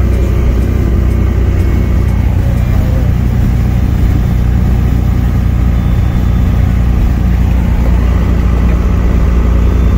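Detroit Diesel Series 60 12.7-litre inline-six diesel running steadily under way at highway cruise, heard from inside the semi truck's cab.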